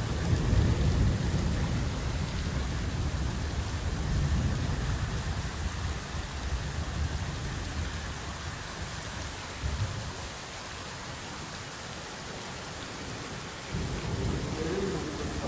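Heavy rain pouring steadily onto a flooded street, with a long rumble of thunder that starts at once and dies away over about eight seconds.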